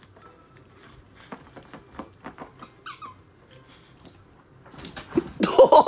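A dog playing with a toy on a bed: scattered soft clicks and a brief squeak, then near the end a loud, rapid run of short high-pitched squeals.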